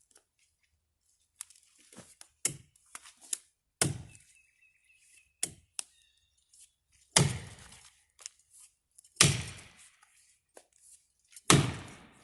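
Felling axe with a 3.5 lb head chopping into the trunk of a dead ash tree: a series of hard single strikes, each with a short ringing tail. The heaviest blows come about two seconds apart in the second half, after lighter knocks in the first few seconds.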